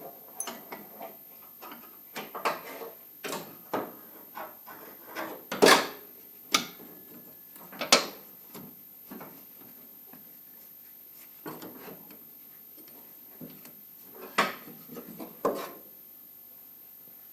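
Irregular knocks, clunks and scraping as shifter cables are handled and pushed against the car's body while being test-routed, with a few sharper knocks around the middle and one more near the end.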